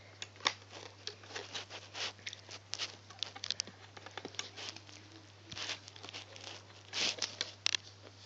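Fingers pushing rubber loom bands down the pegs of a plastic loom: irregular small clicks, scrapes and rustles, several a second.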